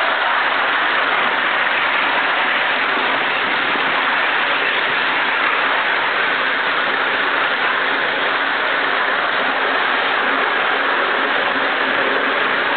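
Steady hiss of escaping steam from a Gresley O1 2-8-0 steam locomotive standing in steam, even and unbroken, with no exhaust beats.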